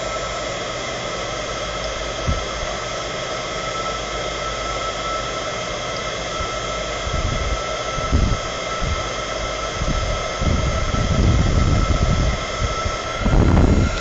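ECG Mini heat gun running steadily on its higher setting: a strong rush of blown air with a high whine from its fan motor, cutting off abruptly at the very end. From about halfway in, irregular low rumbles join it.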